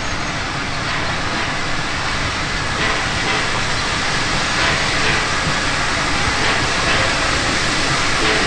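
Steam locomotive drawing a passenger train slowly toward the platform, tender first. Steam hisses steadily, with soft exhaust beats about once a second, growing a little louder as it nears.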